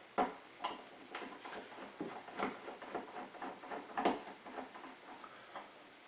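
A flathead screwdriver turning out the screws of a light-switch faceplate: a string of small irregular clicks and ticks as the blade works in the screw slots, the loudest just after the start and about four seconds in.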